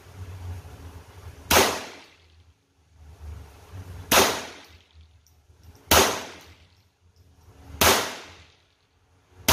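Ruger 10/22 semi-automatic rifle firing .22 LR Hornady Varmint Express rounds: four single shots about two seconds apart, with a fifth right at the end. Each shot is a sharp crack that dies away over about half a second.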